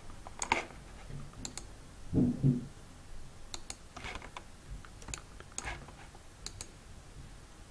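Scattered sharp computer mouse and keyboard clicks over a faint room hiss, with a short low sound about two seconds in.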